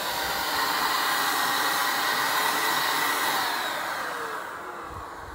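Handheld electric paint spray gun running steadily, its turbine blowing air and paint with a whirring hiss. Near the end its pitch falls and the sound fades as it slows down.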